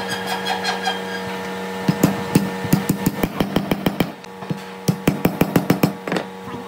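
Sharp knocks on wood in quick, irregular runs of several a second, over the steady hum of an electric motor. The knocks thin out for a moment a little past halfway, then pick up again.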